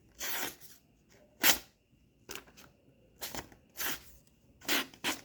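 Victorinox Hunter Pro Alox blade slicing through paper: about seven short hissing swishes, the sharpest and loudest about a second and a half in. The slices test how much edge the knife has kept after heavy cutting.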